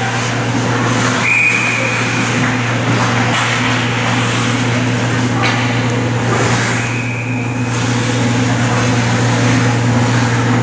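Ice hockey game sound in an indoor rink: a steady low hum under the scraping of skates and the clatter of sticks and puck on the ice, with a sharp knock about five and a half seconds in. Two brief high-pitched tones come about one and a half and seven seconds in.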